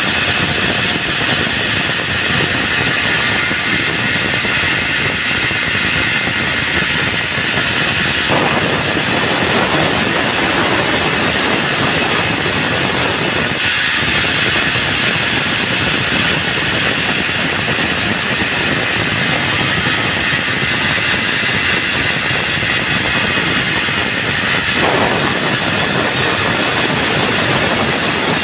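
Band sawmill running, its blade cutting through a log with a loud, steady mechanical noise and hiss. The sound changes abruptly a few times along the way.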